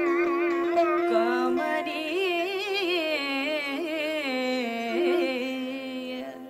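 Indian classical vocal music for Odissi dance: a singer holds notes and sings fast, wavering ornaments over a steady sustained drone. The sound dips briefly near the end.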